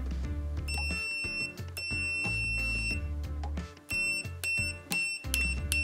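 UNI-T UT118B pen multimeter's continuity buzzer beeping at a high pitch as its probe tips are touched together: two held beeps of about a second, then a run of short quick beeps near the end that follow each touch closely. Background music plays underneath.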